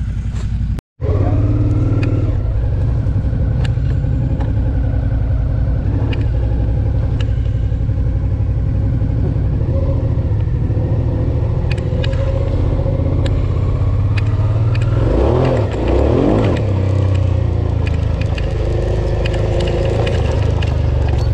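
Suzuki V-Strom 650's V-twin engine running under way on a dirt track, heard from the bike itself, with a steady low drone and occasional clicks. The engine note shifts briefly about two-thirds of the way through. The sound breaks off for an instant just under a second in.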